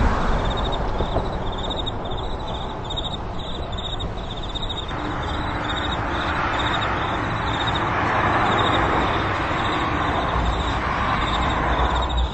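Metra commuter train running by, a steady rushing noise that swells about eight seconds in. Over it, a railroad crossing bell rings about twice a second.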